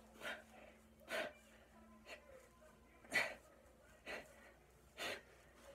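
A man's sharp, hard breaths through the mouth, about one a second, in time with the strain of lifting a dumbbell.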